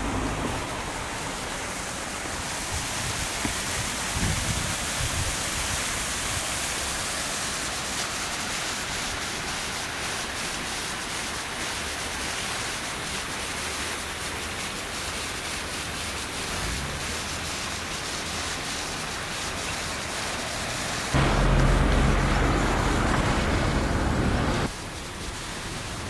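Steady rushing of river water flowing below a stone-walled channel. For about three seconds near the end, a louder low rumble of wind buffeting the microphone comes in and cuts off suddenly.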